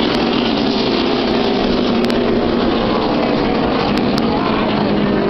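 NASCAR stock cars' V8 engines running at racing speed around the track, a loud steady wall of engine noise heard from the grandstands.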